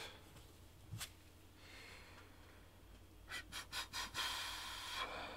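Faint handling noises as a gloved hand turns a muzzle brake on a rifle barrel and handles a combination wrench: a single click about a second in, then a quick run of clicks and a breathy hiss near the end.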